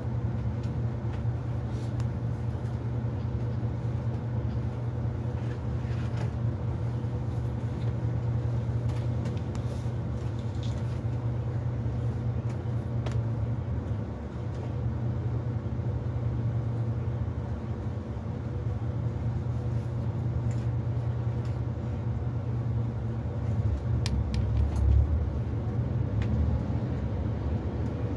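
FlixBus coach engine idling, heard from inside the cabin as a steady low hum. About 24 seconds in the engine note rises as the bus pulls away.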